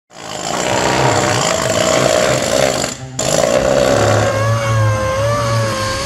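Loud, steady noise of power tools working steel: an air-hose-fed hand tool, then after a brief break about three seconds in, a hand grinder whose whine wavers in pitch.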